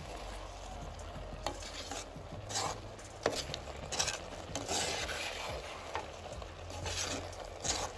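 A ladle stirring and scraping thick rose apple chutney around a clay pot, in repeated strokes about once a second, over a soft sizzle of the cooking chutney and a steady low hum.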